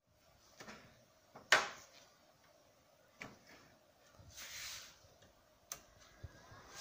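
Scattered sharp clicks and knocks from hands working at a Bio-Tek Synergy HT microplate reader, the loudest about one and a half seconds in, with a soft rustle a little past the middle; a click near the end as the instrument's rocker power switch is pressed on.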